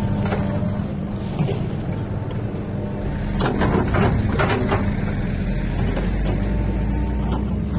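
XCMG excavator's diesel engine running steadily under work. A few short knocks and scrapes come about halfway through, from the excavator working the material.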